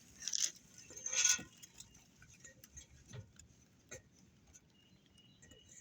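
Handling noises: two brief rustling scrapes in the first second and a half, then scattered light clicks and taps, with one sharper click about four seconds in.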